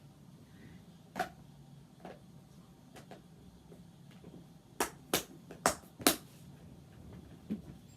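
Sharp clicks and taps of Vanguard trading cards being handled and set down: a few single clicks, then a quick run of four louder ones about five to six seconds in.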